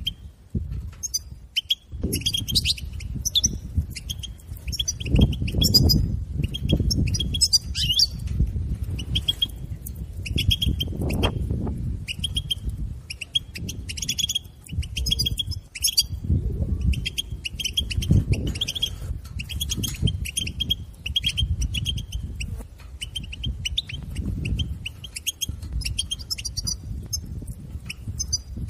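European goldfinch calling: quick, repeated twittering chirps that run on almost without a break. A low rumble swells and fades underneath.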